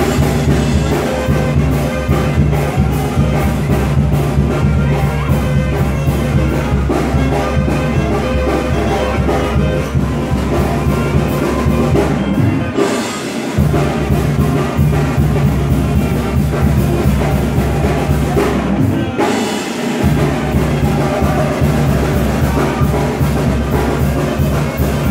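Loud dance music played over a party DJ sound system, with brass and a steady drum beat over heavy bass. The bass drops out briefly twice, about halfway through and again near three-quarters of the way.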